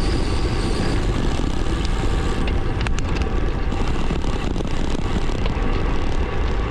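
Steady low rumble of wind rushing over the action camera's microphone and road-bike tyres rolling on the road while riding, with a few faint clicks about three seconds in.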